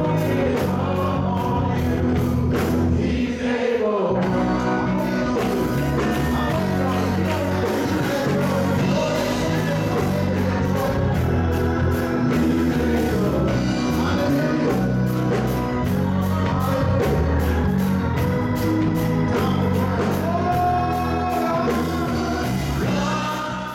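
Gospel music with singing over a steady beat and bass, beginning to fade near the end.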